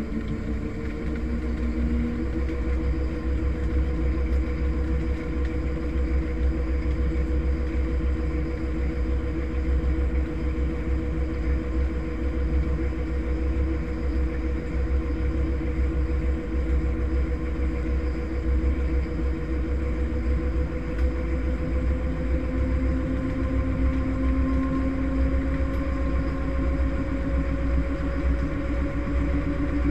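Front-loading washing machine on its spin cycle, heard from inside the drum: a steady low rumble with a motor whine that slowly rises in pitch as the drum picks up speed.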